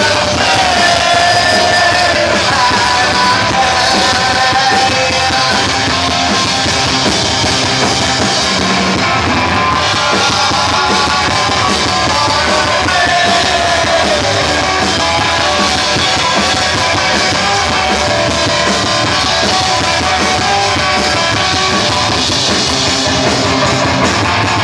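Live punk rock band playing loud and without a break, with drums and a singer's vocals over the band.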